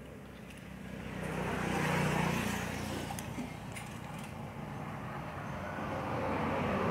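Road traffic going past: a vehicle's engine noise swells to a peak about two seconds in and fades, then another rises near the end. A few faint clicks sound over it.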